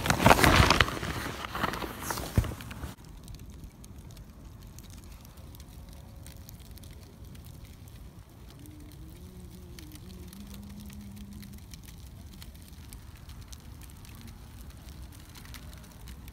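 Loud rustling and knocking of a giant red bow handled right against the microphone, stopping abruptly about three seconds in. Then a wood campfire burns with a steady low rush and faint crackle.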